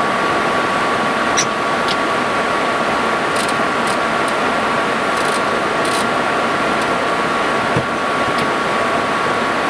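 Steady rushing cabin noise on an MD-80 flight deck in flight, with a thin steady whine above it. A few faint clicks come through, one about a second and a half in and several between three and six seconds.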